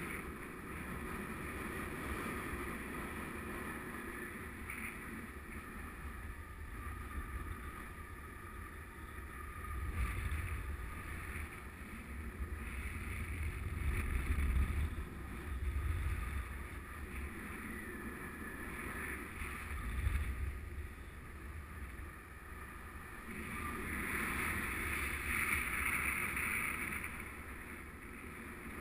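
Wind buffeting the camera microphone of a paraglider in flight, a steady rush with stronger low gusts about ten, fifteen and twenty seconds in.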